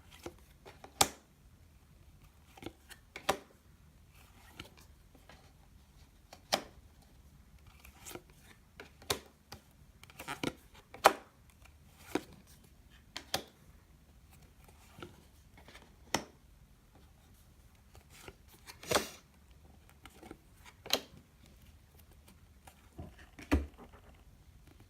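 Glossy trading cards being flipped through one at a time, each card slid off the stack or laid down with a short, sharp snap, irregularly every second or two.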